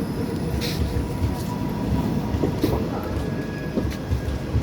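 Chennai–Mumbai express train (22158) rolling in, a steady heavy rumble of coaches and wheels with scattered knocks and a few sharp clicks from the wheels over rail joints.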